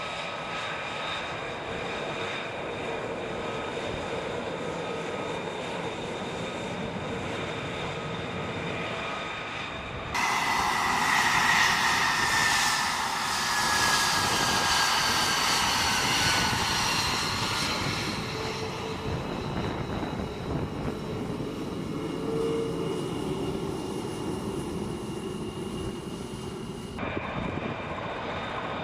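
Jet aircraft engines running, a steady rush with high whining tones. About ten seconds in, the sound cuts abruptly to a louder stretch with a slowly falling whine. It cuts back to a quieter engine sound near the end.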